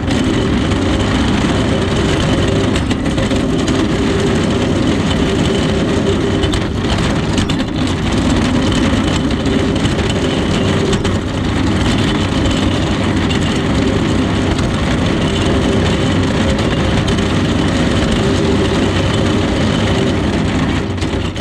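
Steady engine and road noise of a moving vehicle, unchanging throughout and cutting off abruptly at the end.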